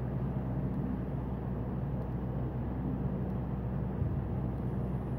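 Steady low hum with a faint even hiss behind it, unchanging throughout.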